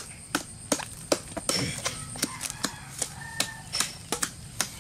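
Machete blade hacking into the fibrous top of a felled coconut palm trunk, a quick uneven run of sharp chops about three a second, cutting it open to reach the palm weevil grubs inside.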